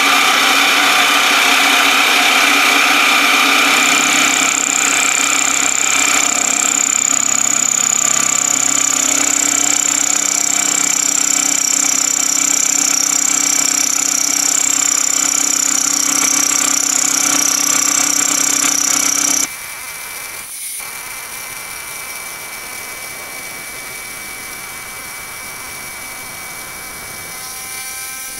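Milling machine running an end mill through a metal block, a steady machining noise with a high whine that comes in a few seconds in. About two-thirds of the way through it drops suddenly to the quieter steady sound of the machine running.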